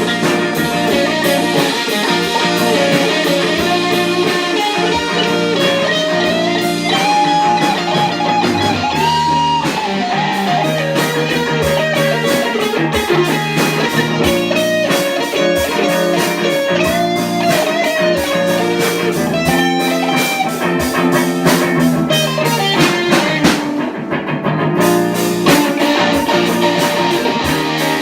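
Instrumental break in a slow blues-rock song: a guitar plays a bending lead melody over sustained chords, bass and a drum kit.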